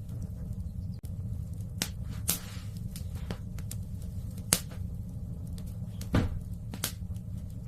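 Wood fire in a fireplace crackling: a steady low rumble with about half a dozen sharp, separate pops from the burning logs.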